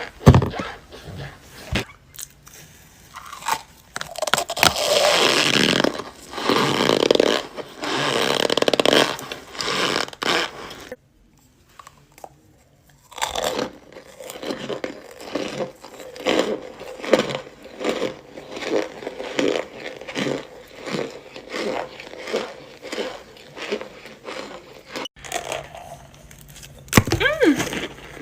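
Cornstarch blocks being bitten and chewed. A sharp crunch comes at the start, then several seconds of loud, dense crunching. After a brief quiet gap, a steady run of short, crisp chewing crunches follows.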